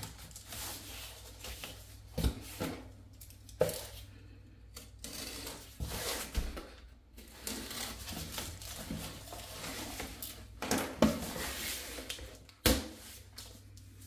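Cardboard and plastic packaging being handled: irregular rustling and scraping, broken by a few sharp knocks and taps, the loudest near the end.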